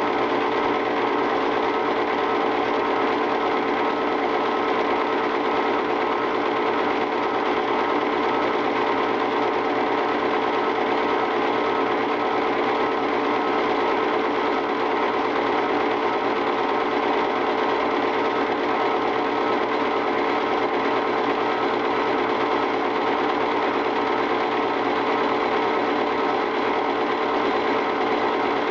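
Film projector running: a steady mechanical whir with a fast, even clatter that never changes.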